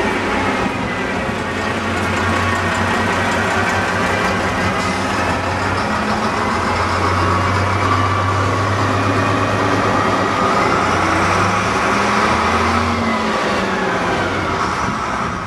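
Leyland National Mk1 single-decker bus's turbocharged Leyland 510 diesel engine running as the bus pulls past and drives off, with a steady low engine note and a whine that falls and rises in pitch.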